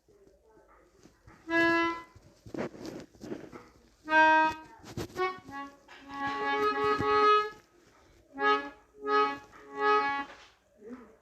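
Melodica playing a few separate held notes with pauses between them, then three short repeated notes near the end.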